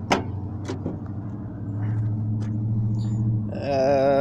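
Acura TSX's K24 four-cylinder engine idling steadily, breathing through a K&N filter with the intake resonator removed. A sharp click right at the start and a couple of lighter knocks come as the hood is unlatched and raised.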